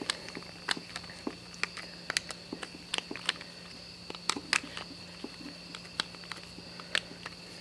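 Screwdriver tightening the cable clamp screws on a plastic extension cord plug: irregular small clicks and ticks as the tip works in the screw heads.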